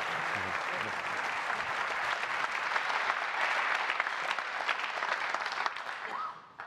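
A large audience applauding, a dense clatter of many hands clapping that dies away near the end.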